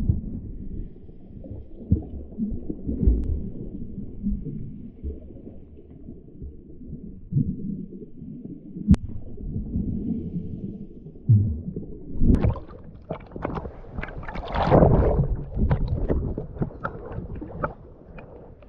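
Sea water sloshing and gurgling, muffled around a camera held in the water, then louder splashing from about twelve seconds in.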